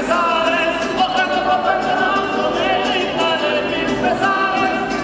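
Music: several voices singing together, choir-like, in long held notes that waver in pitch.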